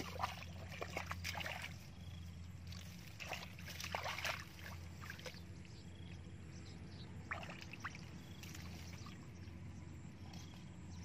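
Shallow muddy water splashing and sloshing as hands and feet work through the mud, in bursts: near the start, again around three to four seconds in, and briefly past seven seconds. A steady low hum runs underneath.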